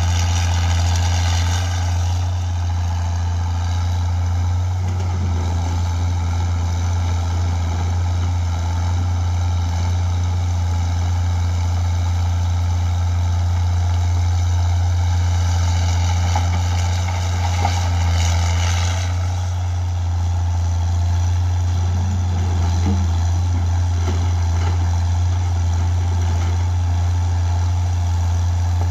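Caterpillar 320CL excavator's Cat 3306 six-cylinder diesel engine running at a steady speed. A higher whine comes in over it twice, at the start and again about 16 seconds in.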